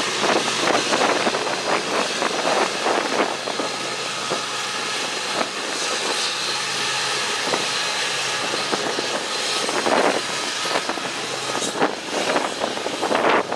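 Diesel freight locomotives running with a steady low hum, heard through heavy wind gusts buffeting the microphone.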